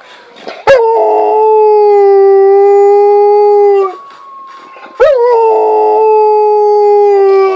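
Rottweiler howling: two long howls of about three seconds each, the second starting about five seconds in. Each opens with a quick upward swoop in pitch, then holds steady and sags slightly toward its end.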